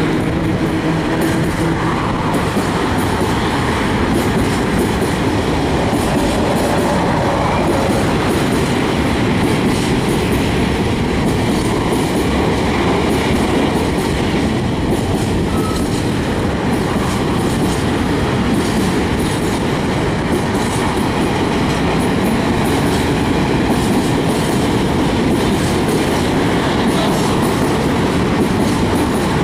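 Freight train of open coal wagons hauled by an ET22 electric locomotive rolling past: a steady, loud rolling rumble with repeated wheel clicks on the rails.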